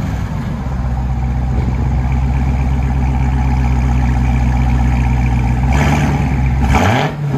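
Supercharged 6.2-litre Hemi V8 of a Dodge Charger Hellcat Redeye, breathing through a Borla ATAK cat-back exhaust, idling steadily just after start-up. Near the end the note dips and then rises in a short rev.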